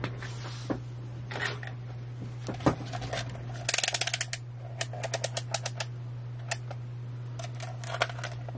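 Small clicks and taps of objects being handled on a workbench, including a quick run of about ten rapid clicks around four seconds in and a looser string of ticks just after, over a steady low hum.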